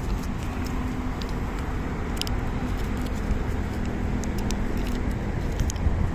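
Steady low mechanical rumble with a faint steady hum, like an engine running nearby, and a few faint sharp clicks scattered through it.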